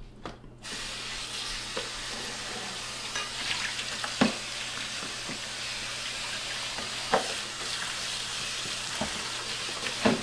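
Steady sizzling hiss like food frying, starting about half a second in, with a few sharp pops and crackles about four, seven and ten seconds in.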